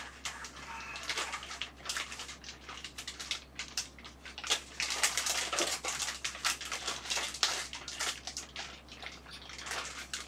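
Plastic wrapping crinkling and rustling as a computer case side panel is handled and unwrapped: irregular crackles that grow busier about halfway through.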